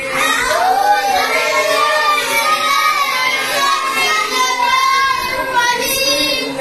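A group of children's voices chanting together in a sing-song, reciting a lesson aloud in class.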